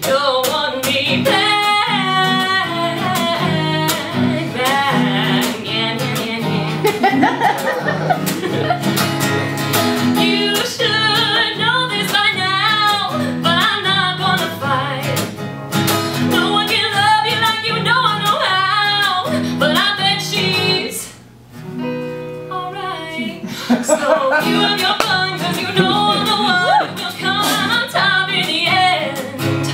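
A woman singing a song while accompanying herself on a strummed acoustic guitar, performed live, with a brief pause about two-thirds of the way through.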